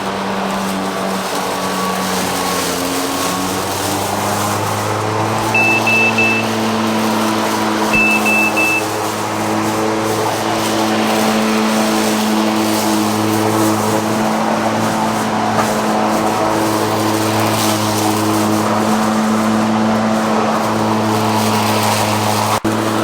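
Lawnmower running steadily while cutting grass, its motor drone shifting slightly in pitch a few seconds in. Two quick runs of three short high beeps sound about six and eight seconds in.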